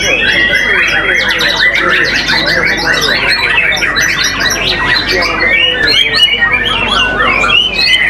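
White-rumped shamas (murai batu) singing, several birds overlapping in a dense chorus of whistles, trills and harsh notes. A fast run of repeated notes, about five a second, carries through the first few seconds.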